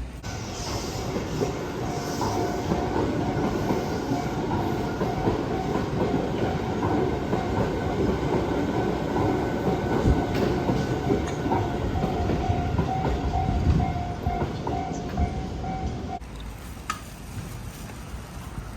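Train passing over a railroad crossing, its wheels clattering on the rails, with a repeating tone running above the rumble. The sound cuts off suddenly about sixteen seconds in, leaving a quieter background.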